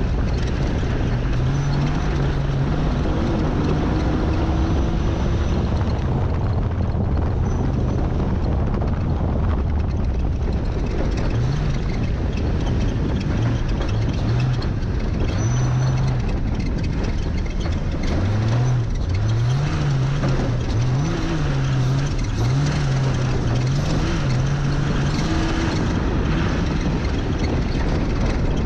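Ultra4 Jeep Comanche race truck's engine running under load on a dirt course. It holds a fairly steady note at first, then revs up and down over and over, about once a second, in the second half, over a steady rush of wind and road noise.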